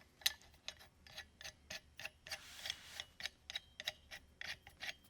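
Star knob with washer being screwed by hand onto a threaded stud, making a string of clicks about four a second.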